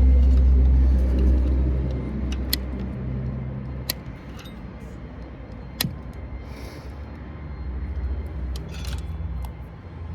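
A low rumble, strongest in the first few seconds and then fading, with a few sharp metallic clicks and light clinks from handling a circuit board and its small metal hardware.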